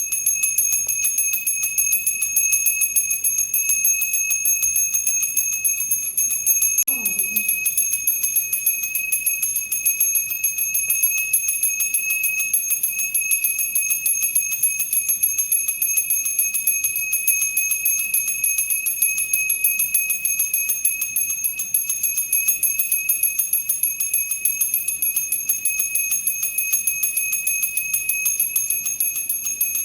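Temple bell ringing rapidly and without pause, a high, steady ringing tone with a fast, even pulse from repeated strikes.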